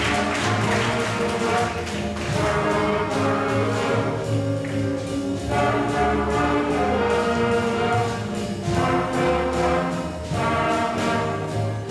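Student band of trumpets, saxophones, clarinet and flutes playing a blues tune, backed by keyboard and drum kit.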